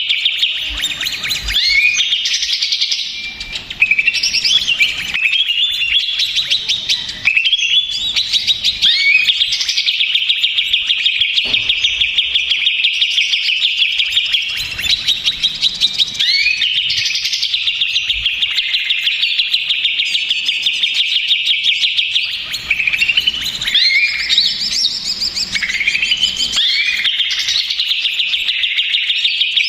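Cucak ijo (green leafbird) singing loudly and without a break: rapid chattering and fast trills, broken every few seconds by rising whistled glides. It is a noisy, agitated song of the kind played as lure audio to provoke other cucak ijo into singing.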